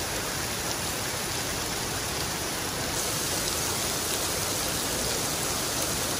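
Heavy rain pouring onto a wet cobblestone street: a steady hiss of splashing water.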